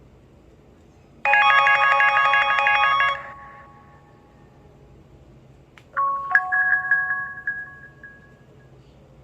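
HTC Desire 530 ringtones playing from the phone's speaker. First comes a rapid electronic trill of alternating tones for about two seconds. A few seconds later a bell-like chime follows, its notes ringing on and fading out.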